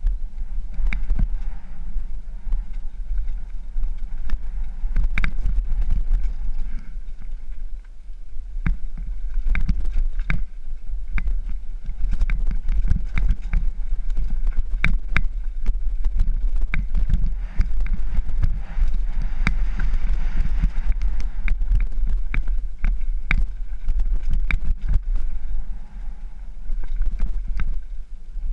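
Mountain bike riding down a rocky dirt singletrack: steady wind buffeting on the helmet-mounted microphone, with frequent knocks and rattles as the bike runs over rocks and roots.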